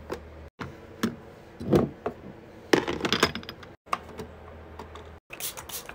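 Light clicks and knocks of plastic and glass as a mini fridge's plastic shelf is slotted in and glass bottles are set inside, over a low hum. The sound breaks off abruptly several times.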